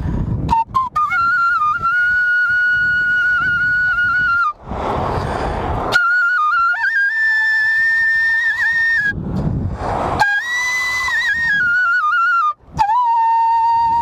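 Bansuri (bamboo transverse flute) playing a slow melody in long held notes with slight wavering, each phrase ending in a short pause with a rushing noise of breath or wind. The phrases climb in pitch and then drop to a lower note near the end.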